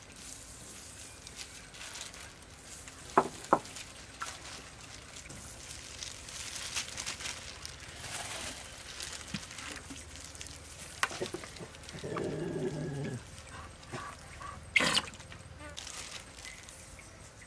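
Dry seasonings sprinkled by gloved hands over chopped vegetables in a steel tray: faint hiss and plastic glove rustle, with a few sharp clicks, two about three seconds in and one near the end.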